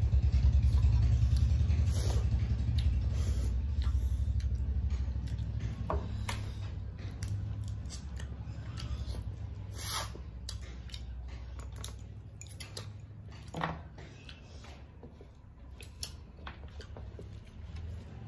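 Two people eating rice and curry with their hands from steel plates: wet squishing of rice being mixed by hand and chewing, with a few short clicks and clinks against the metal plates. A low rumble is loudest in the first few seconds and then fades.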